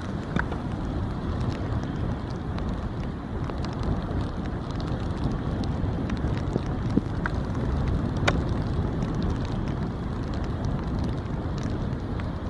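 Wind buffeting the camera's microphone: a steady low rumbling noise, with a few faint ticks.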